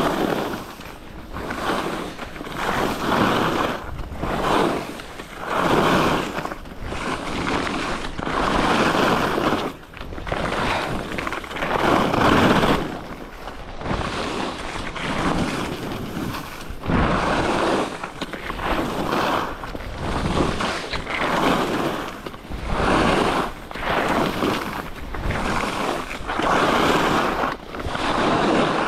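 Skis scraping and carving across snow, the hiss swelling and fading with each turn about once every second or so, over wind noise on the microphone.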